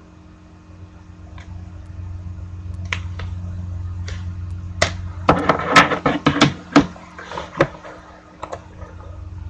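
Scattered sharp clicks and knocks over a steady low hum, with a dense flurry of them about five to seven seconds in.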